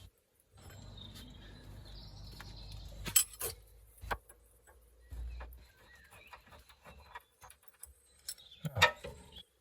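A cordless power tool runs for about two and a half seconds, spinning off the drop link's bottom nut. Then come sharp metallic clinks and knocks as the loosened nut and link are worked free.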